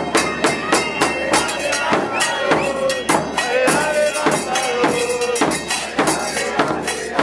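Crowd of football supporters singing a chant over fast, steady drumming.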